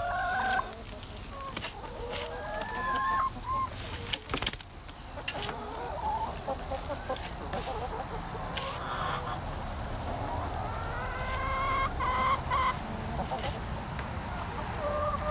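Flock of hens clucking and calling, with rustling and scraping in straw and compost and a few sharp knocks as a pitchfork turns the pile.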